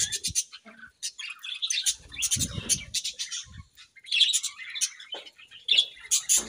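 Several budgerigars chirping and chattering in quick, overlapping bursts of high notes, with short pauses between bursts.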